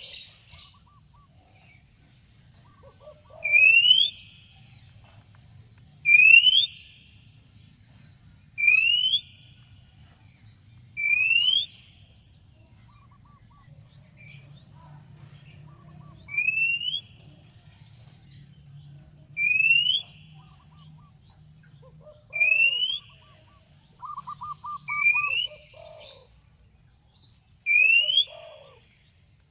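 Oriental magpie-robin singing a loud rising whistle over and over, about one every two to three seconds, with soft lower notes between them and a quick trill near the end.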